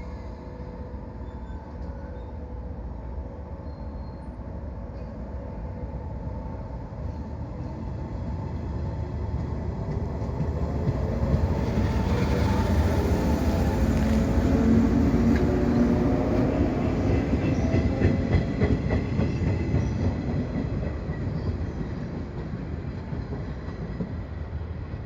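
115-series electric multiple unit pulling away from a station. Its motors whine in several rising tones as it gathers speed, growing louder as it comes past. Wheels click over rail joints as it goes by, then the sound fades as it draws away.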